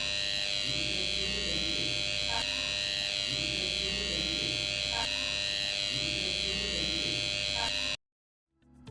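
Intruder alarm's buzzer sounding a continuous high-pitched, slightly wavering tone, then cutting off suddenly about eight seconds in.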